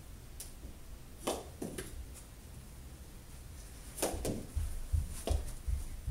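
Knee hockey play with mini hockey sticks and a ball: scattered sharp clacks and knocks, more of them about four seconds in, along with dull low thumps of knees and bodies on the carpeted floor.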